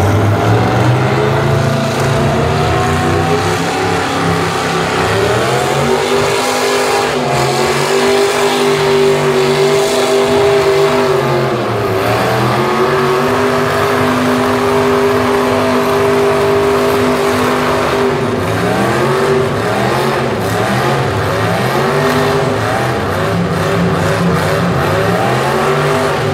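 Stock pulling tractor's engine working under full load, dragging a weight-transfer sled. The revs climb about five seconds in and hold, sag briefly in the middle and recover, then rise and fall repeatedly over the last several seconds.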